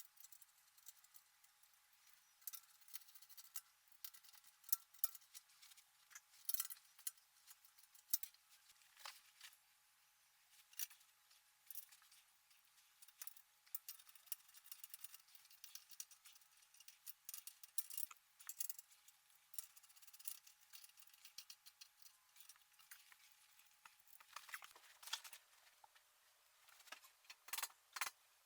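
Faint, irregular metallic clicks and clinks of metal frame parts, bolts and tools being handled, over a faint steady tone that stops near the end.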